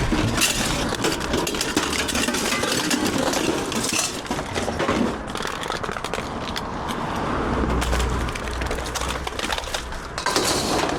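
Scrap metal and wire being gathered up and loaded: a continuous jumble of clinks, rattles and knocks as metal pieces hit each other.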